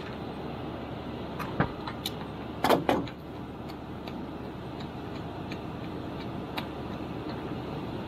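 Metal clicks and clinks of wrenches on a brass flare nut as it is broken loose and turned off a copper refrigerant line on a mini-split, with a short cluster of clanks about three seconds in, over steady background noise. The joint is being taken apart because it is suspected of leaking.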